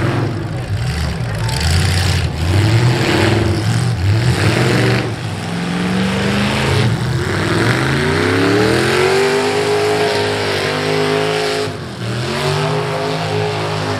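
V8 demolition derby cars' engines revving up and falling back repeatedly, with a few sharp bangs scattered through.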